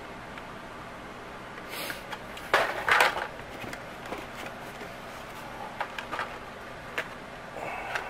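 Hot Wheels blister-card packages being handled and pulled from a cardboard case: plastic and cardboard rustling and clacking, loudest about two and a half to three seconds in, with a few lighter clicks later.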